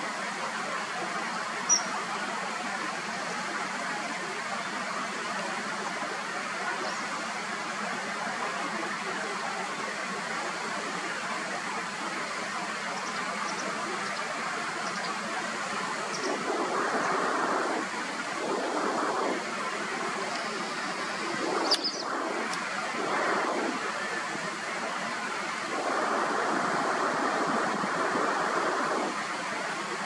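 Steady rushing outdoor background noise that swells louder several times in the second half. A few brief, faint high-pitched notes come through it.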